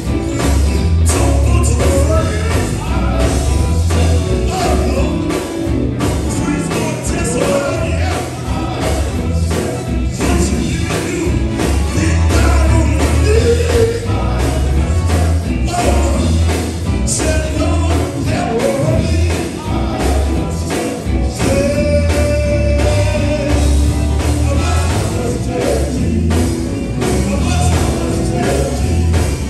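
Live gospel band music: male lead singers singing into microphones over drums, electric bass and guitar, and keyboard, with a heavy bass line.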